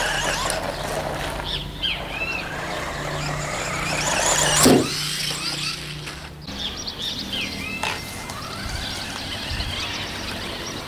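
Electric motor of a WLtoys L959 radio-controlled buggy running as the car drives about, with one brief, loud rush about halfway through. Small birds chirp throughout.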